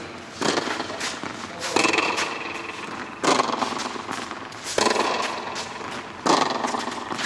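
Tennis rally: racquets striking the ball in turn, five strokes about one and a half seconds apart, each hit echoing and fading in the indoor court hall.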